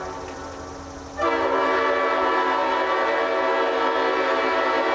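Leslie five-chime locomotive air horn sounding its chord: a fading tail, then about a second in a new long blast starts at full strength and holds.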